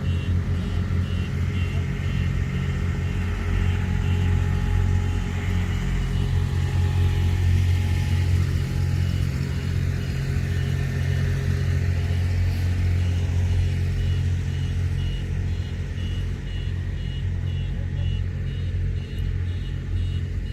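Heavy machinery engines running at a construction site with a steady low rumble. Over much of it comes a fast, evenly repeating high-pitched beep.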